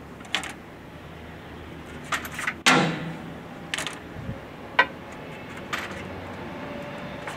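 Scattered metallic clinks and knocks from the parts of a Cummins 6CT diesel engine being handled during camshaft removal. The loudest knock comes about two and a half seconds in and rings briefly, with lighter clicks before and after it.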